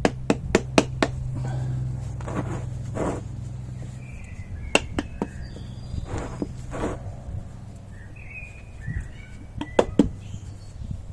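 Sharp knocks of a piece of wood used to tap a motorcycle fork part into place: a quick run of about five taps at the start, then pairs of taps about halfway through and near the end. A steady low hum stops about four seconds in, and faint bird chirps come in twice.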